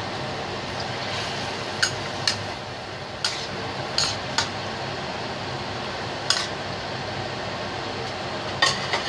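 Spatula stirring chicken curry in a stainless steel wok, knocking and scraping against the metal: about seven sharp clinks spread out over a steady hiss.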